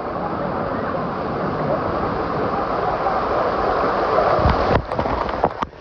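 Wave pool water surging and rushing, with wind-like noise on the microphone; near the end the sound drops out sharply twice.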